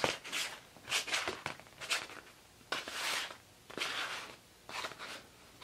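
Small model-airplane retractable landing gear units being handled and moved on a table: a string of short, irregular rustles and light knocks as the metal units and their servo leads are picked up and set down.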